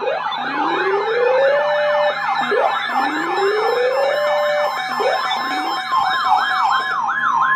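Electronic sirens: a fast yelp sweeping up and down several times a second over a slower wail that climbs and falls about every two seconds. A steady single tone comes in near the end.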